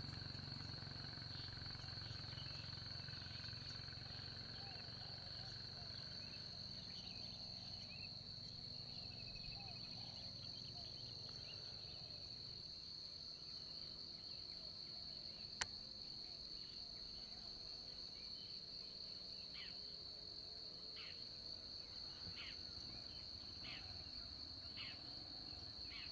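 A faint, steady high-pitched insect drone, with a low rumble that fades away over the first few seconds. A single sharp click comes a little past the middle, and a few short chirps sound in the second half.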